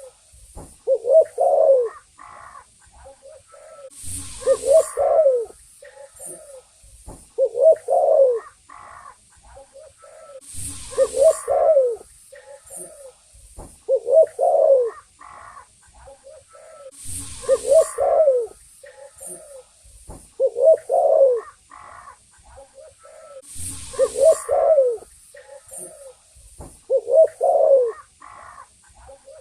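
Spotted dove (tekukur) cooing: the same low, multi-note coo phrase repeated about every three seconds. Short bursts of hiss recur every six or seven seconds between the phrases.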